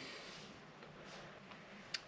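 Near silence: faint steady room hiss, with a single brief click near the end.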